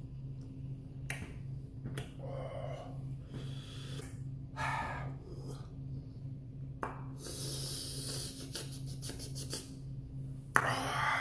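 A man breathing in and out through his mouth in a series of breaths a second or two apart, the loudest near the end, to cool a mouth burning from spicy noodles. A steady low hum runs underneath.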